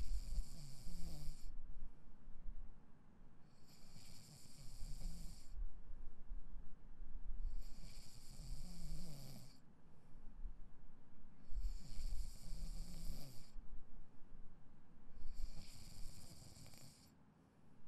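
A person snoring in their sleep, one snoring breath about every four seconds, five in all.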